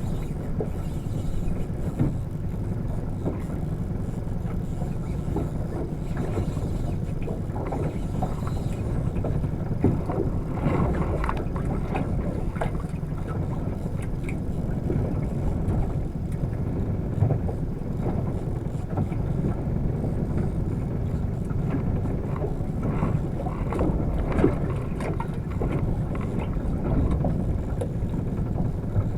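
Small fishing boat on the sea: a steady low rumble, with a few short knocks scattered through.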